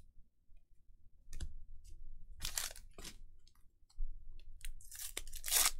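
Handling of 1983 Fleer baseball cards and their wax-paper packs: a light click about a second in, then dry rustling and scraping of card stock and paper, loudest near the end.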